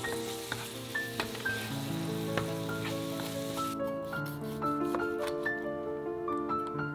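Minced garlic sizzling in oil in a frying pan while a wooden spatula stirs it, over background music. About three and a half seconds in the sizzle stops and a knife slices through crisp-skinned air-fried pork belly, with light knocks of the blade on the cutting board.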